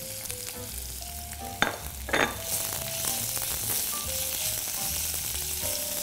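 Pork and onions sizzling in hot oil in a clay pot while being stirred. Two sharp knocks come about a second and a half and two seconds in, and the sizzling grows louder from about halfway.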